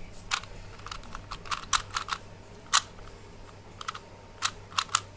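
Plastic 3×3 Rubik's Cube being turned by hand, its layers clicking in quick, irregular runs, with a few clicks close together about two seconds in and again near the end.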